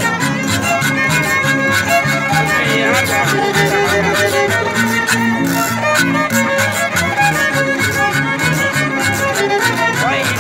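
Harp and violin playing a lively folk tune together, live: the harp plucks low bass notes in a steady rhythm while the fiddle carries the melody above.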